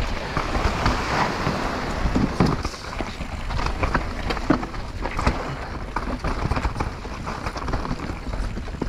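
Mountain bike riding down a rough natural trail: tyres rolling over dirt and rock, with frequent knocks and rattles from the bike, and wind rushing over the action camera's microphone.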